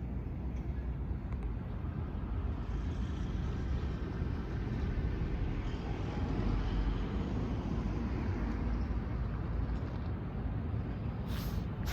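Steady low rumbling background noise, with a brief faint hiss near the end.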